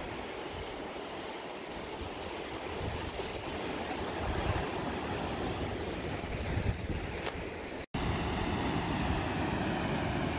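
Wind gusting across the microphone over the steady wash of surf on the beach below, a continuous rushing noise. It cuts out for an instant about eight seconds in.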